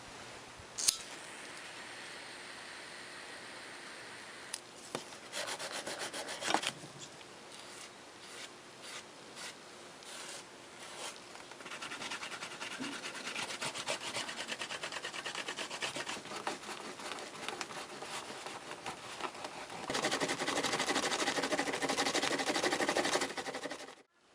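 Rapid back-and-forth rubbing strokes on leather, as when a leather edge is sanded or burnished, with a sharp knock about a second in. The strokes come in stretches and grow loudest near the end before cutting off.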